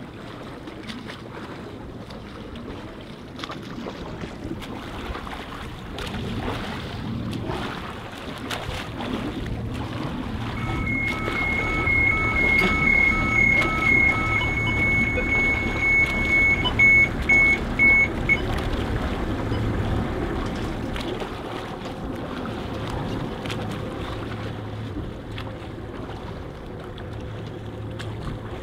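A boat's engine runs steadily under wind and water noise. From about ten seconds in, a high electronic beep sounds for about eight seconds, with a lower pulsing beep over its first few seconds. The beep breaks into short pulses before it stops.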